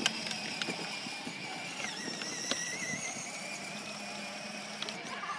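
Electric drive motors and gearbox of a child's battery-powered ride-on toy car whining steadily as it drives along, the pitch wavering slightly, with a few light clicks.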